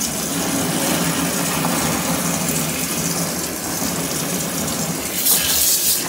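Kuppet twin-tub portable washing machine running its wash cycle: a steady motor hum with water churning in the tub, and a short hiss about five seconds in.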